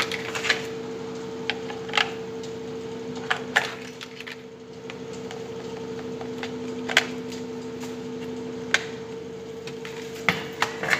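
Hard plastic clicks and knocks from handling a digital weighing scale: batteries going in and the battery cover being fitted, then the scale set down. The clicks come irregularly, a dozen or so, over a steady hum.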